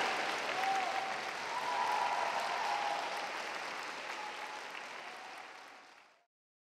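Audience applauding, gradually fading out and ending about six seconds in.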